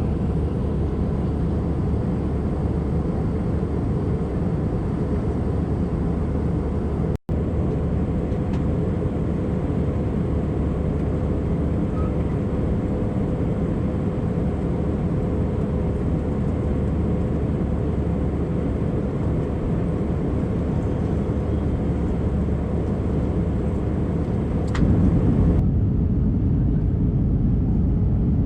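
Steady cabin noise inside an Airbus A319 in flight: the even rush of engines and airflow with a faint steady hum. It cuts out for an instant about seven seconds in, and near the end turns louder and duller.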